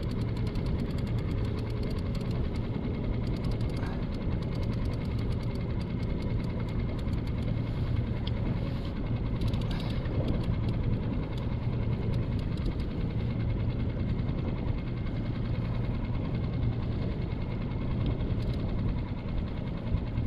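Six-horsepower Mercury outboard motor running steadily, a constant low hum with a fast, even ticking over it.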